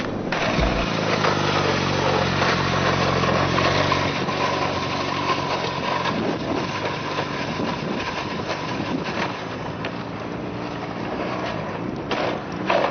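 Peugeot 103 moped's small single-cylinder two-stroke engine running at a fairly steady pitch.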